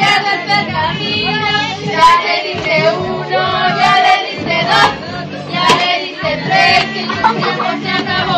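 Children and women singing together over music: the group singing that goes with a child swinging at a piñata.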